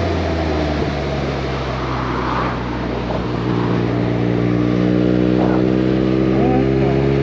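Motorcycle engine running at highway speed under wind noise on the microphone, its pitch climbing slowly through the second half as the bike gathers speed.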